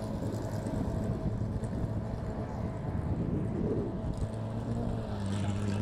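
Wind buffeting the microphone over a steady low mechanical hum, like an engine or generator running without change in pitch.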